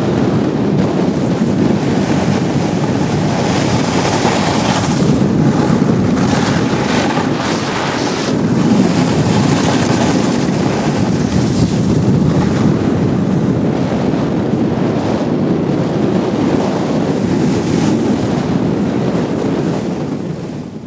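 Steady rush of wind buffeting the microphone of a camera skiing fast down a groomed slope, surging now and then, fading out at the very end.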